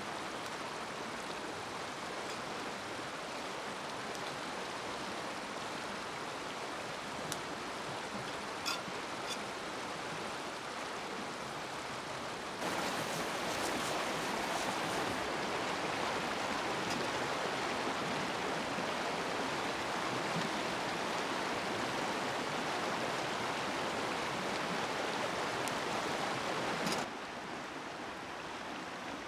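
Stream water rushing steadily. It suddenly gets louder about twelve seconds in and drops back near the end, with a few faint clicks a little before that.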